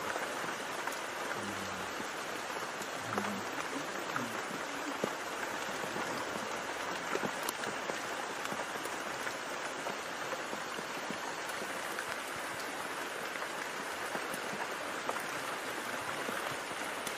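Steady rain falling on leaves, with scattered drop ticks.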